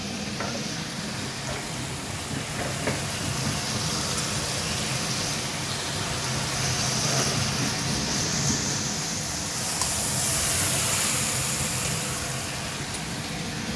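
Roasted whole spices being ground on a shil-nora, a flat grinding stone worked with a stone roller: a steady rough rubbing of stone on stone that swells and eases a few times.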